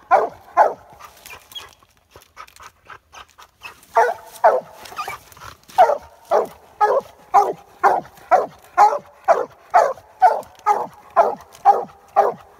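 Leopard hound barking treed at the base of a tree, the steady chop of a hound that has a raccoon up the tree. Two barks at the start, a pause of about three seconds, then evenly spaced barks about two a second from about four seconds in.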